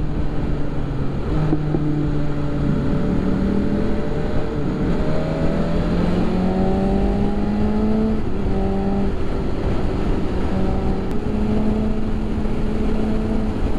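2019 BMW S1000RR's inline-four engine running under way through its slip-on exhaust, over steady wind and road noise. Its note climbs slowly for several seconds as the bike accelerates, dips about eight seconds in, then holds steady.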